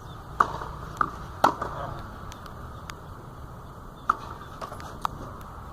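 Sharp pops of a tennis ball struck by racquets and bouncing on a clay court. There are three in quick succession in the first second and a half, then two more about four and five seconds in, each with a short ring, over a steady low rumble.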